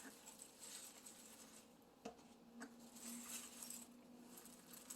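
Near silence with a few faint clicks and a soft rustle: homemade dishwasher tabs being popped out of a cellophane-lined ice-cube tray. A faint steady hum comes in about halfway through.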